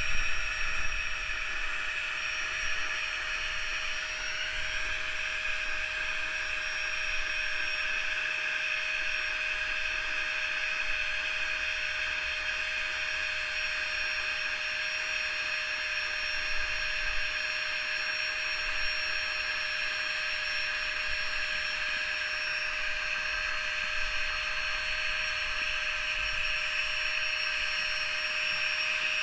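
Flextail Max Pump2 Pro rechargeable electric air pump running steadily, its small motor giving a continuous whirring tone as it inflates a swim ring. The pitch steps up slightly about four seconds in.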